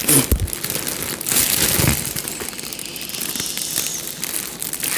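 Large foil balloon crinkling and crackling as it is handled and squeezed at the neck to suck out its helium, loudest in the first two seconds, then softer.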